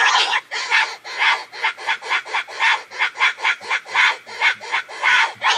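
Calls of a wild sow in heat: harsh, rasping grunts in a rapid, even series of about four a second, with a continuous raspy chatter at the start and again near the end. This is the estrus call that boar hunters play to draw boars in.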